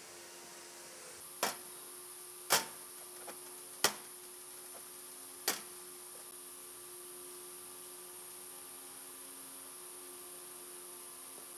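Four short, sharp knocks in the first half, over a faint steady hum.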